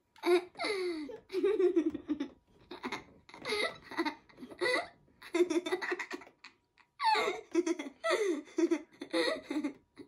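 A young girl laughing in a string of giggling bursts with short pauses between them.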